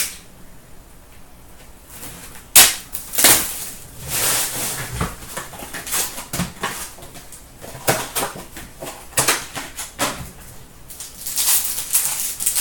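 An Upper Deck Artifacts hockey card box and its foil packs being handled and opened: cardboard and wrapper rustling and crinkling in irregular bursts, with a sharp snap about two and a half seconds in.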